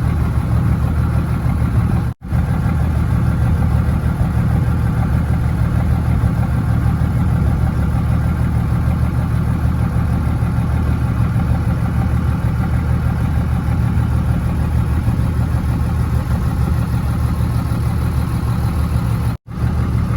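Fishing boat's inboard engine running steadily with a low, even hum, broken twice by brief dropouts, a couple of seconds in and near the end.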